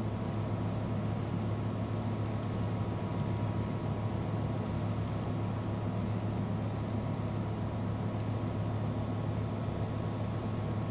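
Steady low hum of a running computer and its cooling fans, with a few faint paired clicks of a mouse button.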